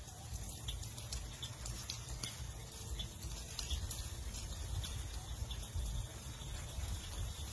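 Faint outdoor ambience: a steady low rumble with scattered faint clicks throughout.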